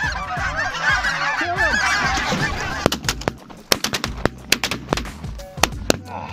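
A large flock of snow geese calling over and over, close and dense. About three seconds in, several shotguns open up in a rapid, ragged volley of roughly a dozen blasts over about three seconds, and the calling thins out.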